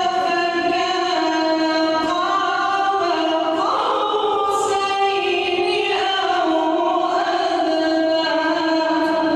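A single voice chanting Quran recitation in the melodic mujawwad style, holding long drawn-out notes that slide and ornament between pitches, with no instruments.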